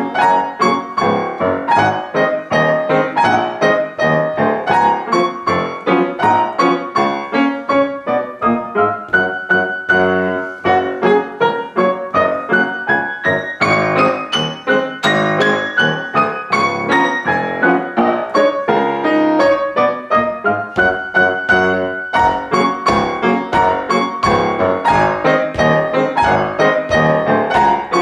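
Background piano music: quick, evenly struck notes with chords.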